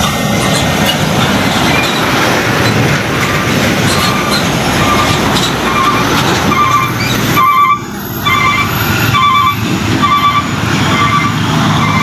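Hino 500 dump trucks driving past close by, their diesel engines running under heavy road noise. From about three seconds in, a steady electronic beep repeats about twice a second.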